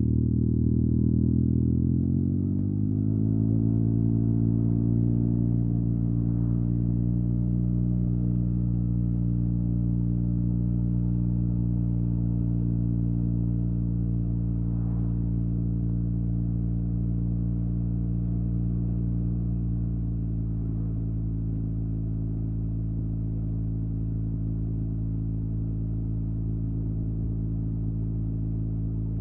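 Yamaha TMAX 560 parallel-twin engine through an Akrapovic carbon full-system exhaust, just started and idling. The idle drops down about two seconds in, then holds a steady, even note, with a slight further settle around two-thirds of the way through.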